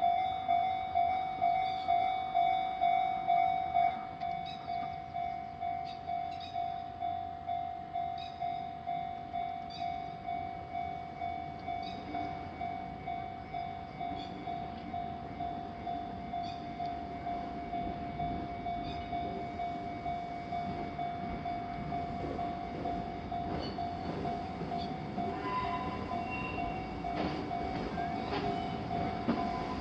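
Japanese railway level-crossing warning bell ringing about twice a second, one repeated clanging tone, which becomes quieter about four seconds in. Over the second half an approaching train's rumble grows beneath it, with the first wheel clicks near the end.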